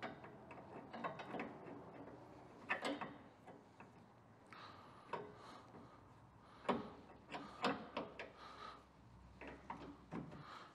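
Steel trailer suspension shackle and bolt being handled and fitted by hand onto the equalizer: irregular light metal clicks and clinks, a few with a short metallic ring.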